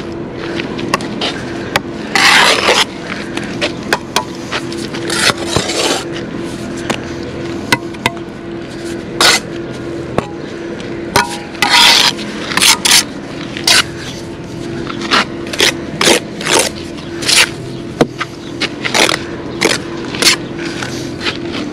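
Steel trowel scraping mortar against concrete blockwork in short, irregular strokes, over a steady low hum.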